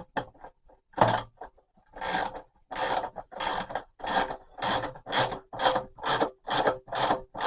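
A nut being tightened down onto a bolt with a hand tool: a run of short rasping strokes, about two a second, as it is done up tight.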